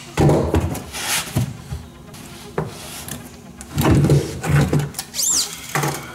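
A steel tape measure being let back in and pulled out again, its blade scraping and clattering on a plastic truck bed liner. Short knocks and rubs come from hands and a knee pad shifting on the liner, with a brief high squeak about five seconds in.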